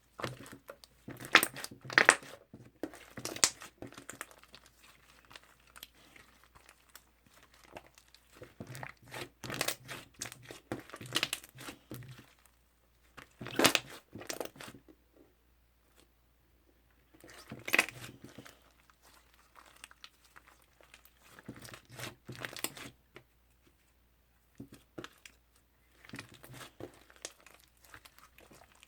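Toffee slime being pressed and stretched by hand, giving sticky crackling and popping clicks in several bursts with short pauses between them.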